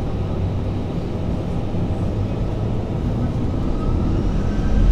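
Airbus A320 jet engines heard from the cabin over the wing: a steady low rumble as the aircraft rolls onto the runway, growing louder over the last second with a faint rising whine as thrust comes up for takeoff.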